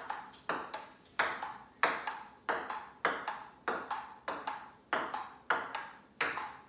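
Ping-pong rally on a dining table, with the ball clicking against the tabletop and the paddles in a steady back-and-forth. The clicks come about three a second, often in close pairs of bounce and hit.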